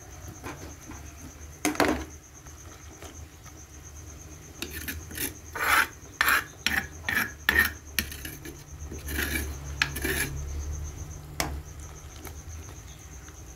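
Metal ladle scraping and knocking against the inside of an aluminium cooking pot as spice paste is stirred into simmering vegetables: one knock about two seconds in, then a run of quick rasping strokes in the middle and a few more shortly after.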